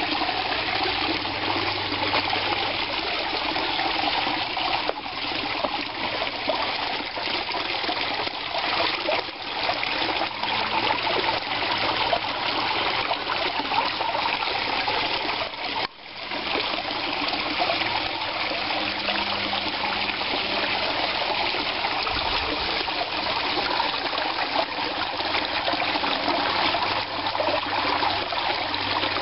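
Pump-fed garden pond waterfall: water spilling steadily off a stone ledge and splashing into the pond, dipping briefly about halfway.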